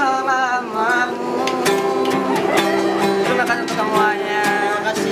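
Men singing together in a small group to a strummed acoustic guitar, the sung line wavering with vibrato over steady strums.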